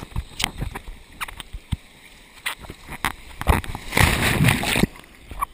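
Water splashing and sloshing around a handheld waterproof action camera, with sharp knocks from handling the camera case. About four seconds in, a loud rushing splash lasts nearly a second as the camera is swept down into the water.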